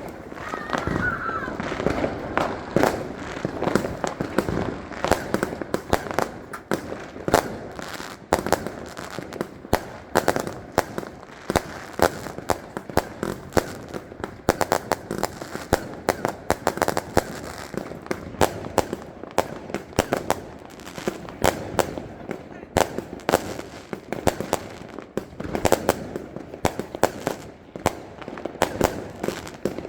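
Small fireworks going off in a dense string of sharp bangs and crackles, several a second, with no break.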